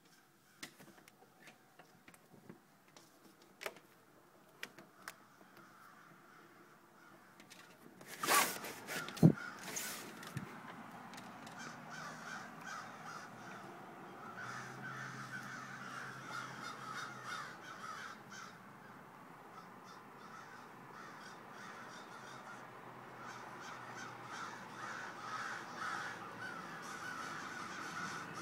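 Many crows cawing, their calls overlapping into a dense chatter that grows slowly louder, after a loud scrape and a sharp knock about eight or nine seconds in.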